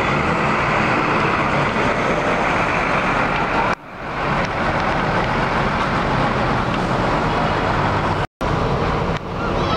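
Diesel engine of an intercity coach running as it pulls away, over steady traffic noise. The sound dips sharply once a little before four seconds in and cuts out for an instant about eight seconds in.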